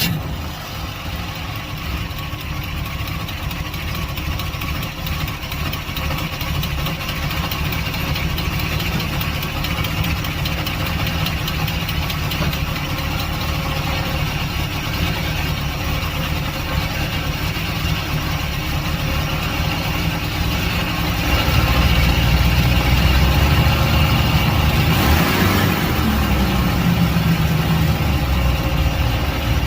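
Car engine idling with an automatic transmission, run to trace a ticking noise that may come from the torque converter or the flexplate. It gets somewhat louder about two-thirds of the way through.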